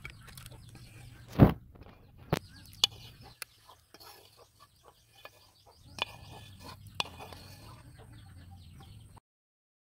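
Chickens clucking in the background, with a few sharp knocks, the loudest about a second and a half in; the sound stops abruptly near the end.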